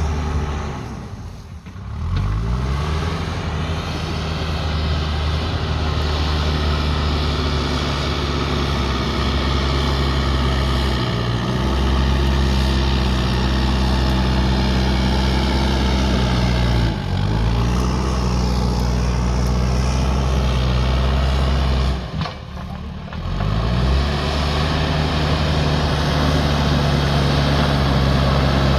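JCB backhoe loader's diesel engine running hard and steady. Its pitch sags and climbs back a few times: near the start, past the middle and again later.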